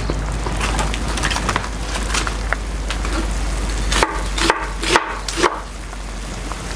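Firewood fire crackling under a boiling pot, with a steady low rumble and scattered small cracks. About four seconds in come four sharp knocks about half a second apart.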